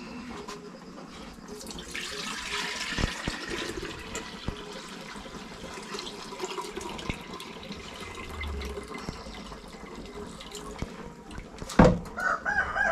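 Cloudy soaking water poured from a metal cooking pot through a plastic sieve into a clay pot, splashing steadily for several seconds. Near the end the metal pot knocks down once and a chicken starts clucking.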